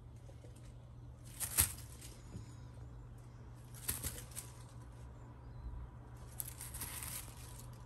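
Soft rustling in three short bursts, the first, about a second and a half in, with a sharp click, over a low steady hum.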